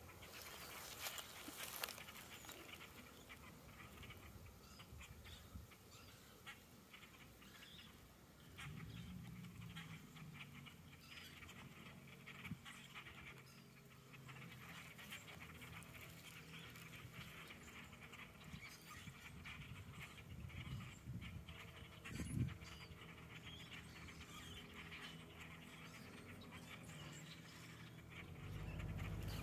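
Faint chatter of a large flock of birds perched in bare treetops: many short, scattered calls throughout. A low steady hum comes in about a quarter of the way through, and one brief louder low sound stands out about three quarters through.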